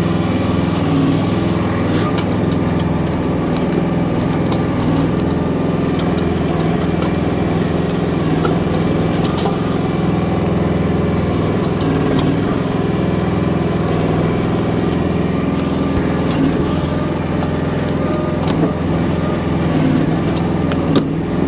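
Chinese mini excavator's small engine running steadily while digging rocks, with a few short clanks scattered through.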